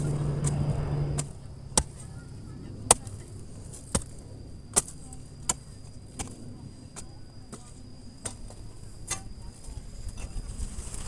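Steel hoe blade chopping into dry, loose soil: a series of sharp strikes roughly once a second. A steady low hum is louder for the first second or so and cuts off suddenly.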